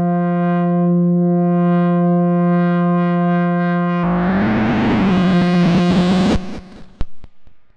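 Tone generator built on a K176LA7 (CD4011-type CMOS NAND gate) chip, run through software effects: a steady buzzing drone at one low pitch, rich in overtones. About four seconds in it turns suddenly harsh and noisy with a wavering pitch, then cuts off into a few crackling clicks.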